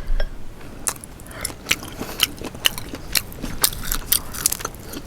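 Close-miked eating sounds from boiled crawfish: a string of sharp, irregular clicks and cracks, several a second, from shell being cracked and bitten.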